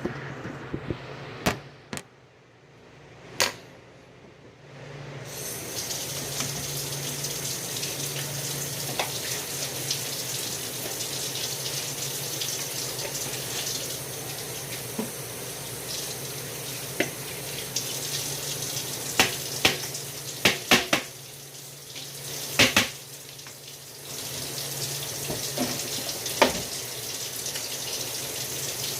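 A water tap running into a sink, turned on about five seconds in, with scattered sharp clinks and knocks, a cluster of them past the middle.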